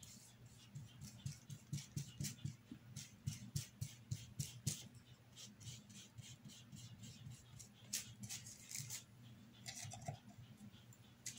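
Faint scratchy swipes of a paintbrush spreading black paint across cardboard, a quick run of short strokes. About ten seconds in, the brush is worked inside the paint jar.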